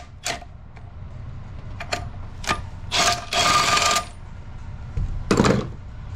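Ratchet wrench on a long extension working a bolt: a run of sharp metallic clicks about half a second apart, a longer metal rasp between three and four seconds in, and a duller clunk a little after five seconds.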